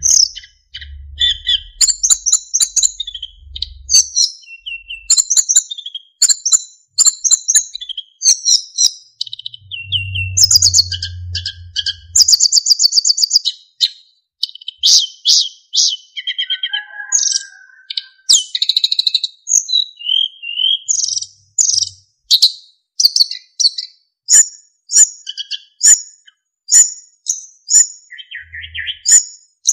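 Sikatan emas flycatcher singing continuously: quick chirps, twittering fills and fast trills mixed with clear whistled notes, ending in a run of evenly repeated short notes.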